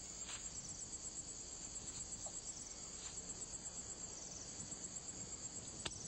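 Night chorus of crickets, a steady high chirring, with a few faint ticks.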